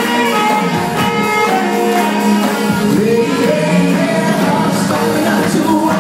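Live band music with a saxophone playing long held notes, sliding up into a higher phrase about three seconds in.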